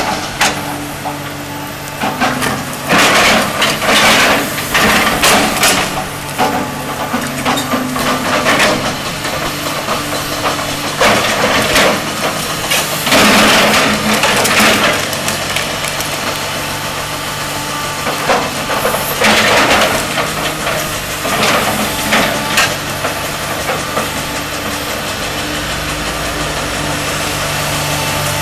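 Komatsu PC300LC hydraulic excavator's diesel engine running steadily under load, with repeated loud bursts of roots and wood breaking and soil crunching as the bucket and thumb tear stumps out of the ground.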